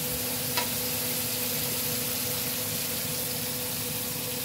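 Spaghetti with canned tuna sizzling in a hot frying pan as it is stirred, with one light knock of the utensil on the pan about half a second in. A steady low hum runs underneath.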